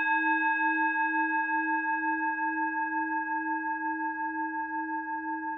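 A meditation bell, struck just before, ringing on and slowly fading with a slow, regular waver in its low tone. It sounds to open the guided meditation.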